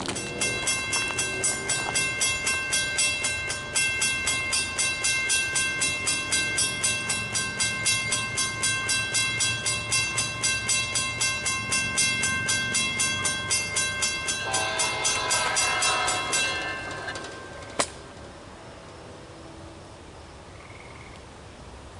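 Mobile phone ringing: an electronic ringtone pulsing about three or four times a second, which changes pattern near the end and stops about 16 seconds in. A single sharp click follows about two seconds later.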